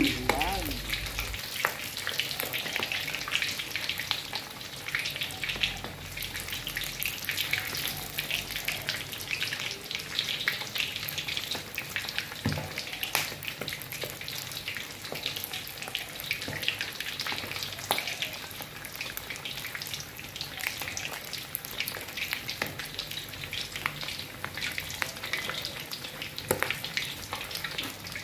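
Pork leg deep-frying in hot oil in a wok: steady sizzling with frequent small crackles and pops.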